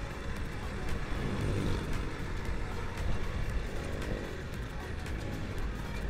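Kawasaki Ninja 150 two-stroke single-cylinder engine running while riding slowly in traffic, through a noisy non-standard exhaust, with wind noise on the handlebar-mounted microphone.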